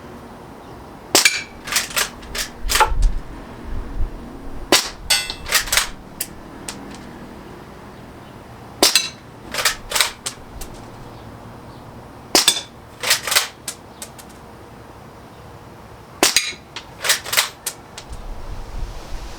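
Barra 1866 lever-action air rifle firing a string of shots, sharp cracks in clusters a few seconds apart, each cluster holding several quick clicks.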